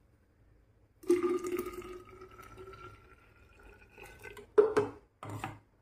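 Ground spinach slurry poured from a mixer jar into a glass jug, starting about a second in, with a ringing tone that rises slowly as the jug fills. Near the end a spatula clatters twice against the glass while scraping out the paste.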